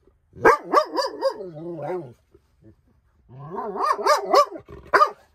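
A dog vocalizing: two drawn-out, wavering calls that slide down in pitch, then a short sharp bark near the end.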